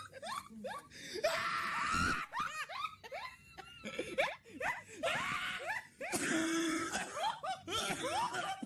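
People laughing hard at a roast joke, with quick high-pitched peals and two louder shrieking outbursts, about a second in and about six seconds in.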